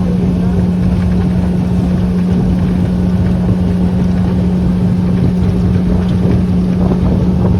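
An engine running at a steady speed, holding one constant hum over a heavy low rumble.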